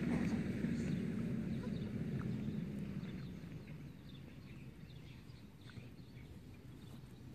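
Outdoor ambience: a low rumble that eases off about three seconds in, with faint, scattered bird chirps above it.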